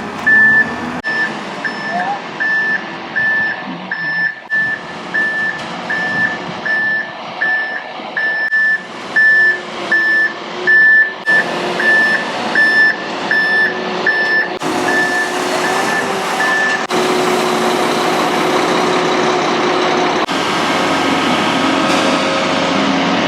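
A truck's back-up alarm beeps about twice a second over its running diesel engine as the truck reverses, most likely the ready-mix concrete truck backing in for the pour. The beeping stops about three-quarters of the way through, and the engine then runs louder.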